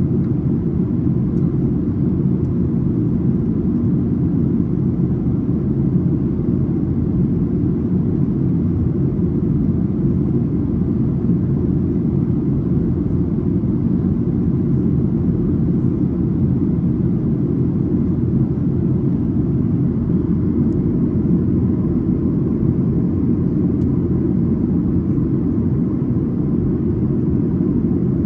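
Steady cabin noise aboard a Boeing 737: an even, constant low rumble of the engines and rushing air, with no change in level.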